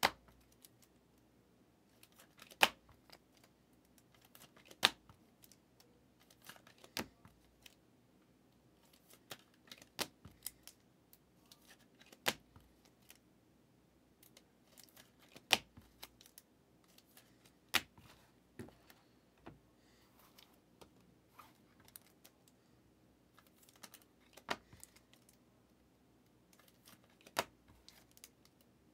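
Trading cards being handled: sharp clicks and taps as cards are flicked and set down, one every two or three seconds, with faint rustling between.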